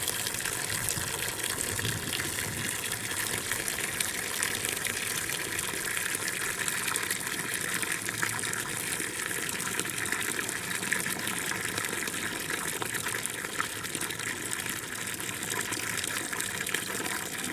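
A thin stream of tap water falls from an outdoor standpipe into a small round stone basin that is full of water, pouring and splashing steadily.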